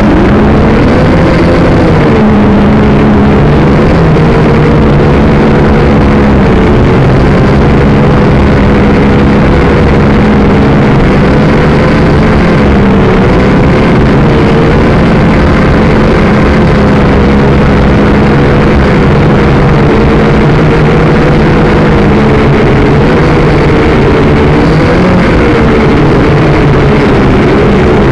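Syma X5 toy quadcopter's small brushed motors and propellers running loudly, a steady whine whose pitch wavers up and down with the throttle. It starts abruptly at the beginning as the drone spins up off the ground.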